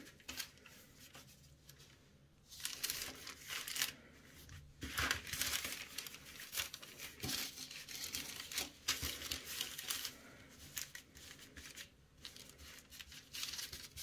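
Baking paper rustling and crinkling under hands that press and stretch out a sheet of lattice-cut puff pastry on it, in irregular bursts starting a couple of seconds in.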